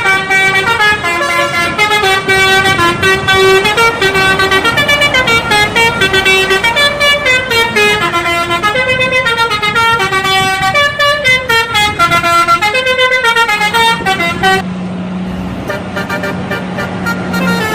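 Indonesian bus telolet horn: a bank of electrically switched air horns playing a fast melody of short notes that step up and down. About fifteen seconds in the melody stops and a steady low tone carries on.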